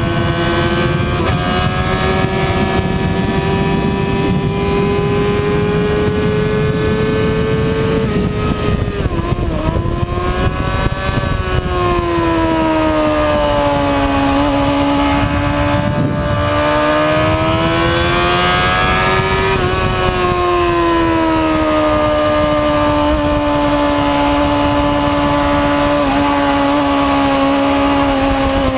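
Motorcycle engine at high revs on track, recorded onboard, with heavy wind rush on the microphone. The engine pitch climbs slowly and drops suddenly a few times at gear changes and braking, then rises again.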